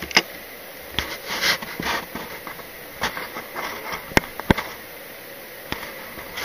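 Handling noise from a small folding metal adjustable-wrench multi-tool: clicks and light rattling as it is closed and set down on a wooden desk, followed by a few sharp isolated clicks.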